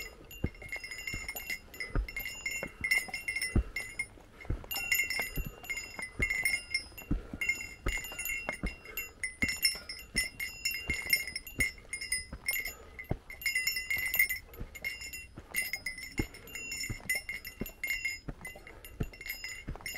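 A small bell carried by a hiker, a bear bell, jingling again and again with the walking pace, over footsteps on the mountain trail.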